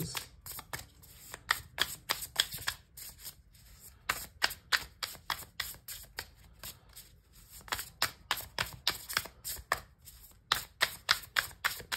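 Tarot cards being shuffled by hand: a run of quick, sharp card slaps and flicks, pausing briefly twice.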